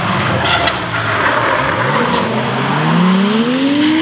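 Car engine revving hard, its pitch climbing steadily from about a second and a half in, over a loud rush of tyre noise on wet tarmac as the car is pushed through a bend.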